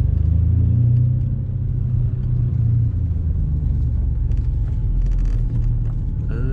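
Single-turbo Nissan G35's V6 engine running at low revs with a steady low rumble while the car rolls slowly.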